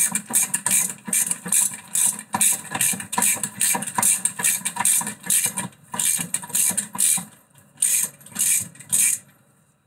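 Hand brush scrubbing the grimy hub of a front brake disc and hub assembly held in a vise, cleaning off old dirt: quick rough back-and-forth strokes, about two to three a second, stopping about nine seconds in.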